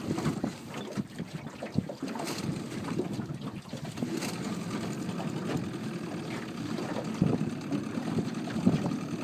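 Rumbling wind and water noise aboard a small boat, with scattered knocks from the hull and fittings.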